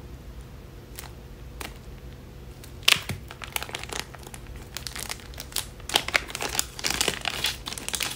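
Clear plastic packaging crinkling as EMS massager pads are handled and unwrapped, beginning about three seconds in and continuing in quick bursts, after a few faint clicks.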